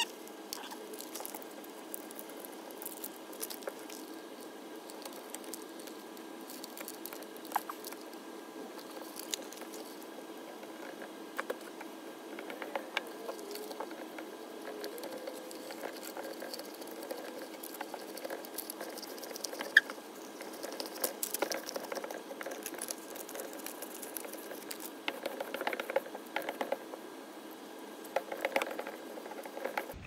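Removable contact paper being laid onto a sheet of adhesive vinyl and smoothed down by hand: faint scattered crinkles, taps and rubbing over a steady low hum, the handling noises getting busier in the second half.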